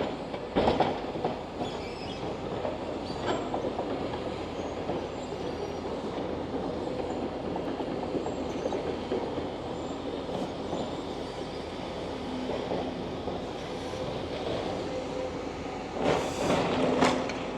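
Excavator working on a demolition site: a steady mechanical rumble with occasional knocks, and a louder clatter about sixteen seconds in.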